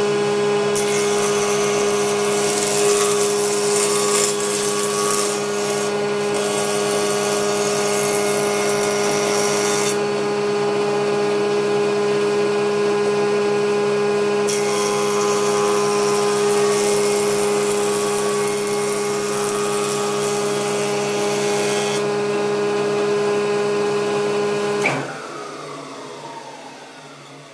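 Combination jointer-planer running with a steady hum while a scrap board is fed twice over its cutterhead, each pass a loud hissing cut, as a test run after installing and tightening the knives. About 25 seconds in, the machine is switched off and the cutterhead spins down.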